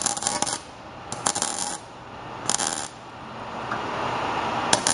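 Electric welding arc crackling in short bursts of about half a second, three times, with a fourth starting near the end: tack welds on a clamped metal frame.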